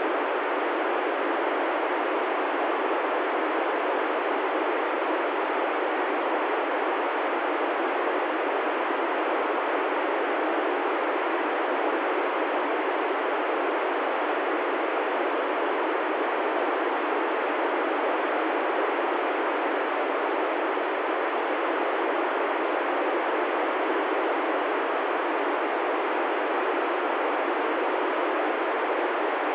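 Steady FM receiver hiss from an ICOM ID-51 handheld tuned to the ISS downlink on 145.805 MHz: the open channel carries noise but no voice. It has the thin, narrow sound of a radio's audio.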